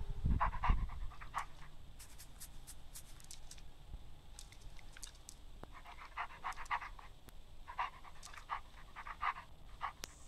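A wolf's panting sound effect, played for an augmented-reality 3D wolf: quick, short breaths in several runs with pauses between. There is a low thump right at the start.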